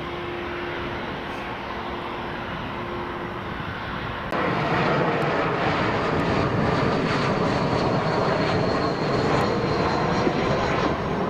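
Airliner engines running loud and steady as an aircraft moves on or over the runway. The sound jumps suddenly louder about four seconds in.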